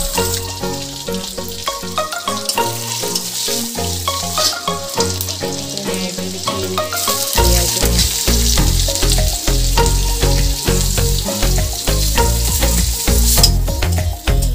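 Sliced onions and green chillies sizzling in hot oil in an iron wok, the hiss growing stronger about halfway through. Background music with a plucked-sounding melody plays over it, and a bass beat joins about halfway.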